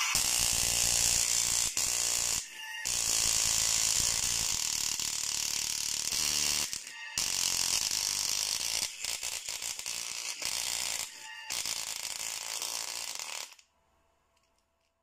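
Small full-range speaker driver, held in the hand, playing a bass test at very large cone excursion. It breaks off briefly a few times and stops about a second and a half before the end.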